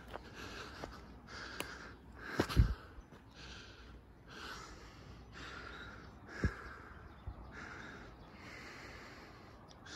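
Close-up noise of a person on foot with a handheld phone: soft rustling about once a second, with two low thumps of handling noise, the louder about a quarter of the way in and the other about two-thirds of the way in.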